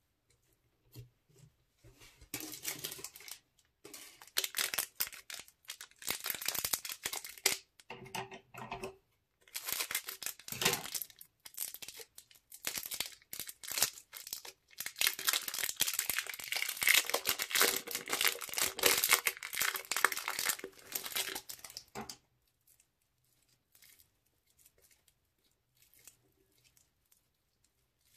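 Thin plastic bag crinkling and tearing in long crackly bursts as it is handled and peeled open from a lump of pink slime. The crinkling stops about three-quarters of the way through, leaving only faint soft sounds of the slime being kneaded by hand.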